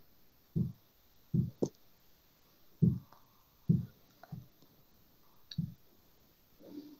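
About seven short, irregular low thumps and clicks coming over a video-call audio feed, uneven in spacing and loudness.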